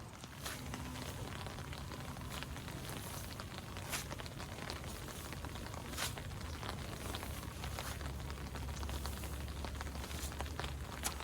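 Steady rain falling, with scattered individual drops striking close by as sharp ticks.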